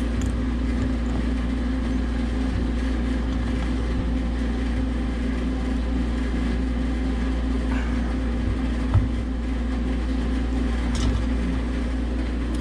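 Steady machinery hum with a strong low drone and a few constant tones, with a single light knock about nine seconds in.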